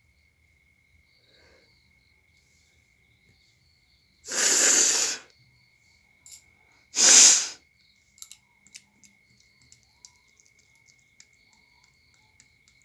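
A woman forces two loud bursts of air out through her nose. The first, about four seconds in, lasts about a second; the second, shorter one comes about two seconds later. A faint steady high tone runs underneath.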